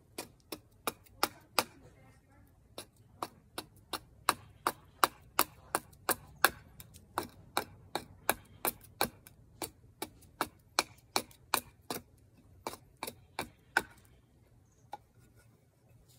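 Small carving hatchet chopping into wood in quick, even strokes, about three a second, with a short pause about two seconds in and the strokes stopping near the end.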